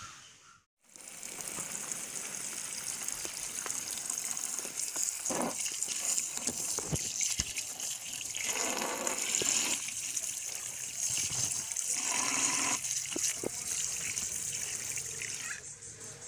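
Tap water running and splashing over raw green mangoes in a plastic tray as hands rub and turn them clean. It starts about a second in after a brief gap and stops shortly before the end, growing louder in places as the fruit is turned under the stream.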